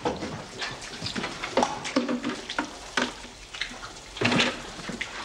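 Household pans and plastic buckets clattering and knocking irregularly as they are gathered, with some splashing of water.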